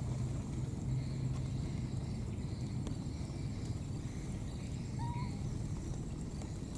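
A baby monkey gives one short coo about five seconds in, over a steady low rumble.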